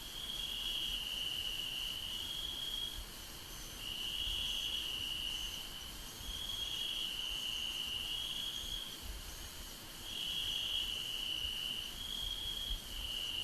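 Crickets chirping in a continuous high trill that swells and fades every couple of seconds, over a faint low rumble.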